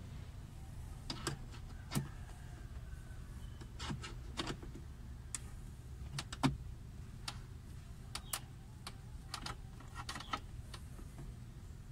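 Scattered light clicks and taps of a screwdriver working the screws and plastic trim of a car's dashboard center panel, over a steady low hum.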